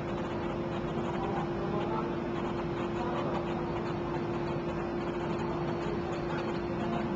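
Steady mechanical hum: an even noise with one constant mid-pitched tone throughout, and no distinct knocks or clicks.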